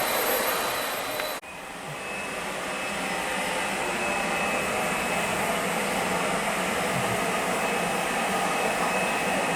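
Leaf blower running steadily with a whooshing rush and a thin whine, blowing out the barn aisle. About a second and a half in it cuts out briefly, then comes back and builds up again.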